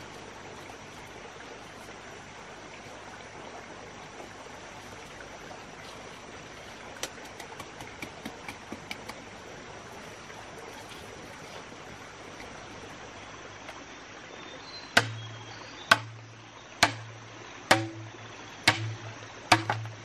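Steady rush of running water, like a forest stream. About three-quarters of the way in, sharp knocks begin, roughly one a second.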